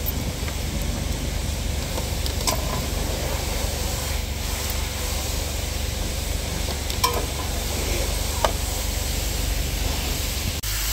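Coins dropping into the coin slot of a self-service car wash payment terminal: three short metallic clinks a few seconds apart, over a steady hissing background noise.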